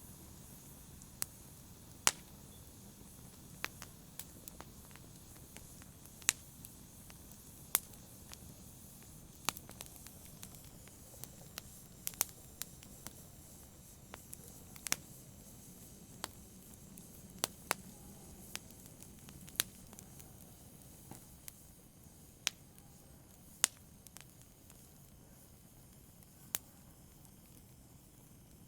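Wood fire crackling: sharp, irregular pops and snaps, roughly one a second, over a low steady rumble of burning.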